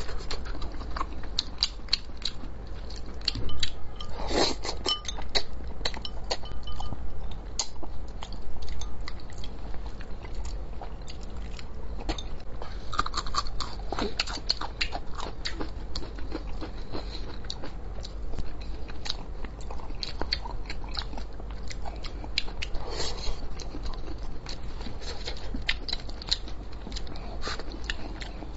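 A person chewing and smacking on spicy braised fish, with many small wet clicks of the lips and mouth.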